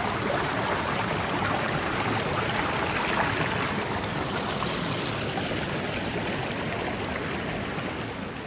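Danska fall waterfall rushing: a steady hiss of falling water, dropping off in loudness near the end.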